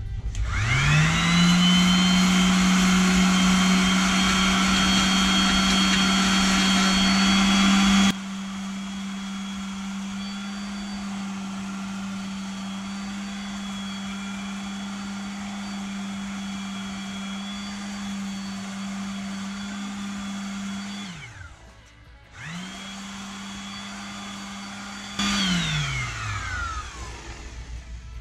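Electric random orbital palm sander spinning up and running steadily as it sands rust off a steel motorcycle brake rotor. It winds down about three quarters of the way through, starts again a second later, and winds down once more near the end.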